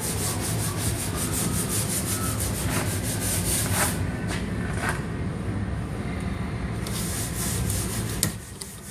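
Steady rubbing, scratchy noise that drops away about eight seconds in.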